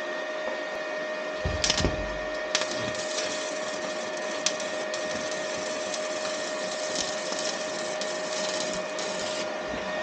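Stick welding arc from a small inverter welder set at about 90 amps, burning old, damp electrodes. The arc strikes with a sputter a couple of seconds in, then crackles and hisses steadily with sharp pops until it is broken off shortly before the end. A steady high whine runs underneath throughout.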